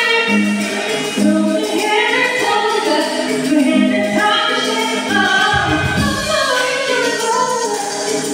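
Several women singing together into microphones, amplified through a PA, over music.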